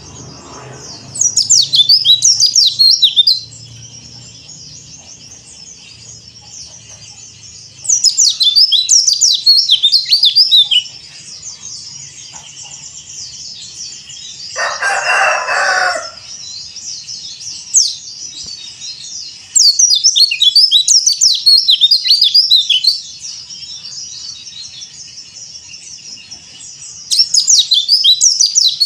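Pleci (white-eye) singing: four bursts of rapid, high twittering chirps, each two to three seconds long, with quieter twittering in between. About halfway through, a single lower-pitched call of about a second and a half stands out.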